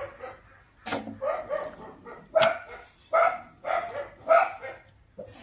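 A dog barking in a string of short barks. Two sharp knocks of a cleaver on a chopping board come about one second and two and a half seconds in.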